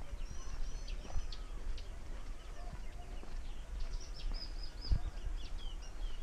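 Songbirds chirping and calling in short, quick high notes, with a busier run of notes about four to five seconds in. Underneath are low rumble and the soft thuds of footsteps on a dirt path, the heaviest about five seconds in.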